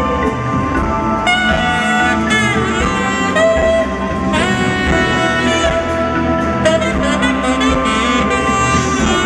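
Live saxophone solo over the band's backing, amplified through a stadium sound system: long held notes with pitch bends and slides between them.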